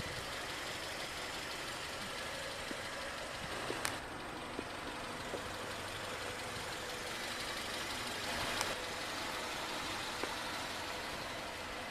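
A 2011 Hyundai Elantra's 1.8-litre four-cylinder engine idling steadily, with a couple of faint clicks about four and eight and a half seconds in.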